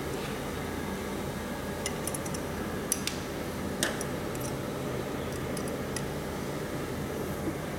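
Scattered light metallic clicks and taps, a handful over several seconds and sharpest about three and four seconds in, as a hex key and hands work the adjustment screws and tilt the aluminium housing of a laser marker's rotary chuck attachment. A steady machine hum runs underneath.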